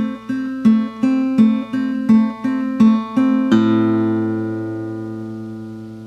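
Plucked guitar music: a quick repeating figure of picked notes, about three a second, ending about three and a half seconds in on a low chord that rings on and slowly fades.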